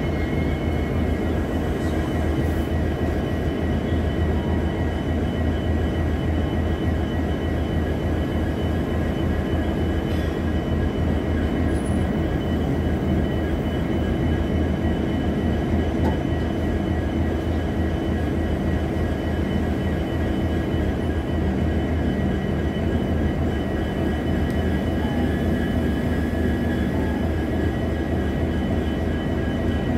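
An Indian Railways passenger train's LHB coaches rolling steadily past close by: a continuous low rumble of wheels on the rails, even in loudness throughout, with faint steady high tones above it.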